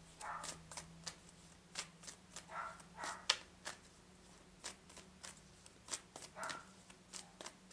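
Oracle cards being shuffled and handled: a faint, irregular run of short rustles and sharp little clicks.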